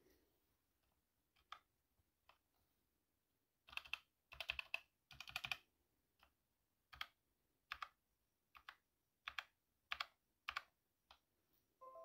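Philco PKB92 mechanical keyboard with Outemu brown switches being typed on. A few faint key taps come first, then three short bursts of quick typing about four seconds in, then single keys pressed one at a time, a little under a second apart.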